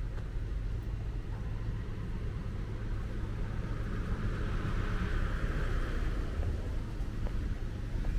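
Traffic noise: a vehicle passing, its sound swelling in the middle and fading near the end, over a steady low rumble.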